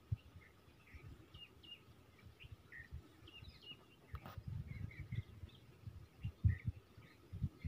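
Small birds chirping in many short, scattered calls, over low, uneven bumps of noise on the microphone. A single sharp click comes about four seconds in.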